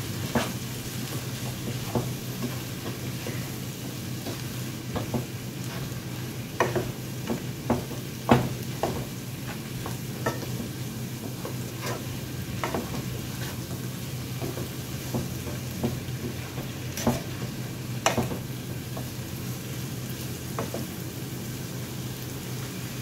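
Corn kernels with onion and red bell pepper sizzling in a skillet while a wooden spoon stirs them, the spoon clicking and scraping against the pan at irregular moments. A steady low hum sits underneath.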